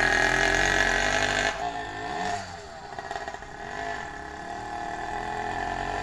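Motorized bicycle's small two-stroke engine running under way. It is loud at first, drops off after about a second and a half with a few swings in pitch, then grows steadily louder as the bike comes back.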